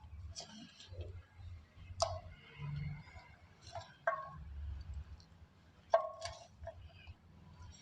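Soft black gym chalk crunching: four sharp crunches about two seconds apart, the loudest about two seconds in and near the end.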